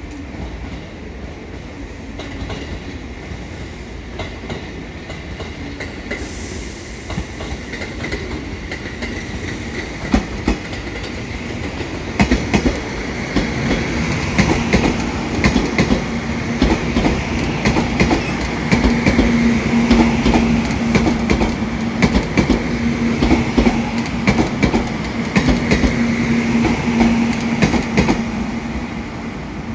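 A train running through a station: a rumble that grows louder about twelve seconds in, then quick clacks of wheels over rail joints with a steady hum over them.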